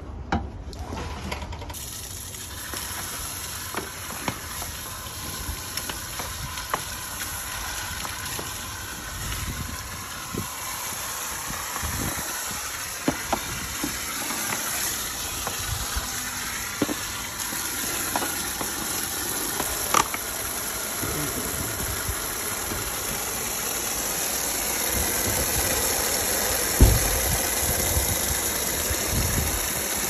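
Water running from an outdoor garden tap and splashing into a plastic pond basin, a steady hiss with scattered knocks as the basin and plant are handled. A louder knock comes near the end.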